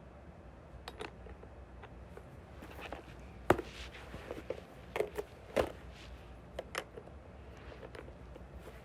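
A scattered run of sharp clicks and knocks, irregularly spaced, the loudest about three and a half seconds in and again a little after five and a half seconds, over a faint steady low hum.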